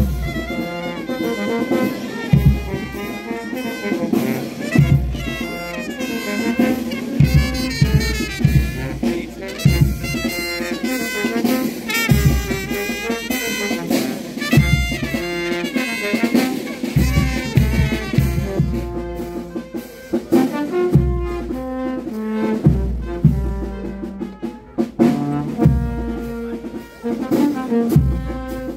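Brass band with drums playing a processional march: trumpets and trombones hold sustained notes over low drum beats that land every second or two.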